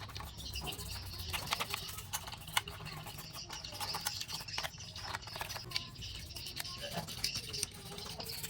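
Irregular small clicks, taps and short scrapes of hands working on parts of a cassette tape deck, over a steady low hum.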